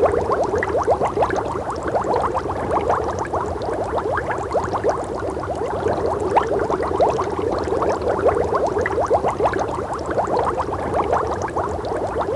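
Boiling water bubbling steadily, a dense, unbroken stream of small bubbles popping.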